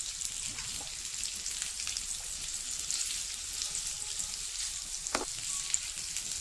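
Chicken seekh kebabs sizzling steadily in a little oil in a nonstick frying pan on low heat, with a fine crackle throughout. A single light knock comes about five seconds in.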